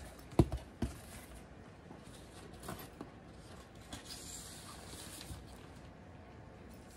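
Handling noise from needlework being moved about: a sharp knock about half a second in and a softer one just after, then faint rubbing and rustling.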